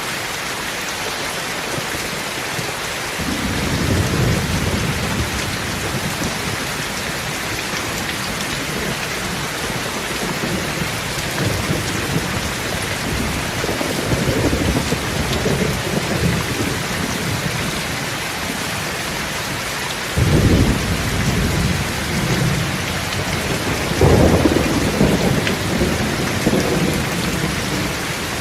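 Steady rain with thunder: a low rumble about three seconds in and another around fourteen seconds, then two sharper, louder claps of thunder about twenty and twenty-four seconds in, each rolling off over a few seconds.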